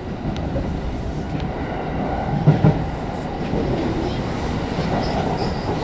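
Kintetsu electric express train running, heard from inside the front car as it gathers speed just after leaving the station: a steady low rumble, with wheels clacking twice over a rail joint about two and a half seconds in.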